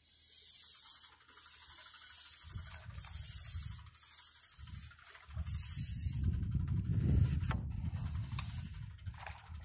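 Carbon fishing pole being drawn back and unshipped, its sections sliding and rubbing in a series of hissing strokes over the first five seconds, then a low, uneven rumble with a few light clicks as it is pulled back further and broken down.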